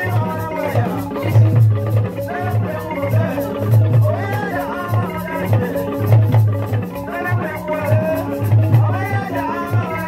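Traditional African dance music: voices singing over a steady, repeating drum beat and shaken rattles.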